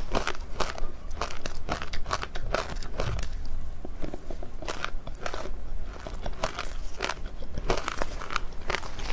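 Someone biting and chewing matcha-powdered ice, a quick, irregular run of crisp crunches.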